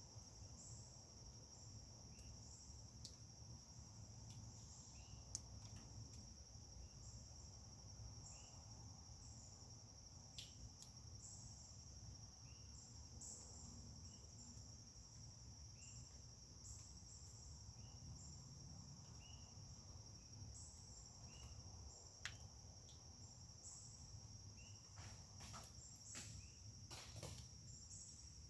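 Crickets singing: a steady high-pitched trill with short chirps repeating over it about once a second, over a faint low rumble. A few sharp clicks near the end.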